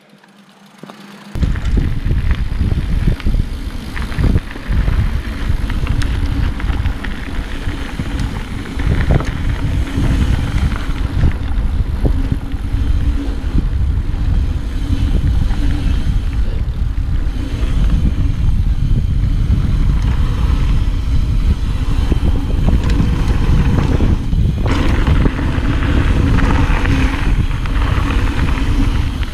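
Wind buffeting a chest-mounted action camera's microphone, together with the rumble of mountain-bike tyres rolling fast down a dirt trail, starting a second or so in. Now and then the bike knocks or rattles over bumps.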